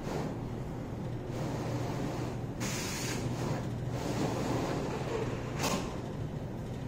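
HP DesignJet XL 3600 MFP large-format printer running as it prints, with a steady hum and two brief swishes about three seconds apart.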